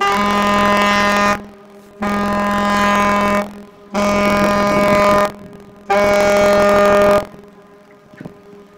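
Car carrier's ship horn sounding four loud blasts in a row, each about a second and a half long with short gaps between, a steady multi-note horn tone; it falls quiet about a second before the end.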